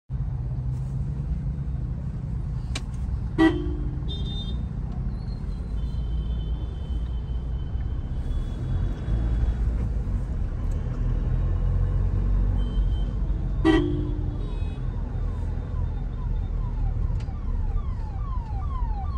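Steady engine and road rumble inside a moving car's cabin, with two short car-horn toots about three and a half and fourteen seconds in. Near the end a siren starts, its pitch sweeping down again and again, about twice a second.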